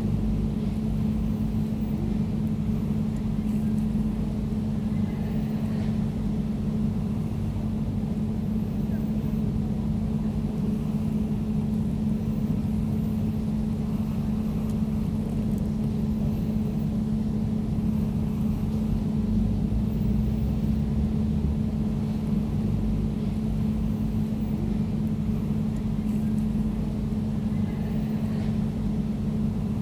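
Air conditioner running steadily: an even, low mechanical hum with a constant droning tone over a rumble.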